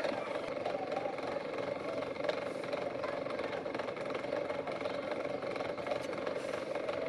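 A motor running steadily: a continuous hum with one strong held tone.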